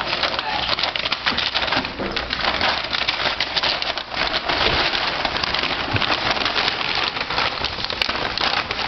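Paper and plastic wrapping crinkling and rustling continuously as pug puppies root around in it with their heads, a dense crackle of small clicks.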